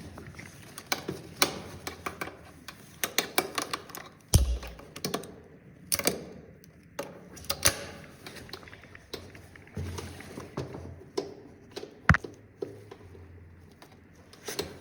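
Rescue rigging being handled: a scatter of irregular metal clicks and clinks from carabiners and hardware, with a heavy low thump about four seconds in and a sharp knock about twelve seconds in.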